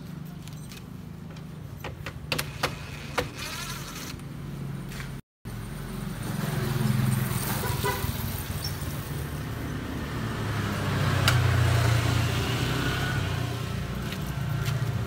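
Low, steady vehicle engine rumble that swells twice in the second half, with a few sharp metallic clicks from hand work on the truck's front in the first few seconds. A short gap of silence breaks it about five seconds in.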